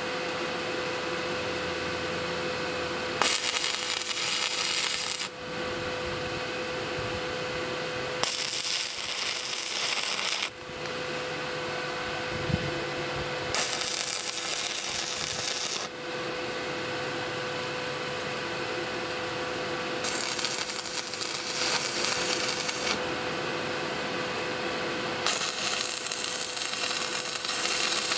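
Stick (MMA) arc welder striking and holding short arcs to lay tack welds on steel angle iron: five separate bursts of arc noise, each two to three seconds long, with a steady hum between them.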